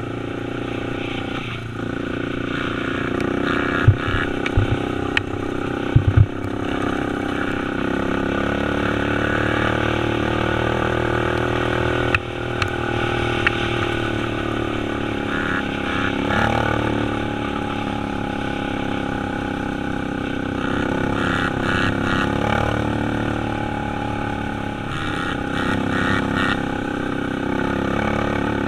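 Dirt bike engine running while riding, its pitch rising and falling with the throttle, with wind rushing over the helmet camera. A few sharp knocks come about four to six seconds in.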